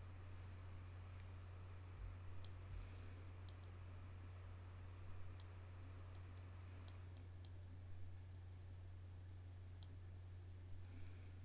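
Faint computer mouse button clicks, about seven at irregular intervals, as the clone tool is clicked along a photo's tear line, over a low steady hum.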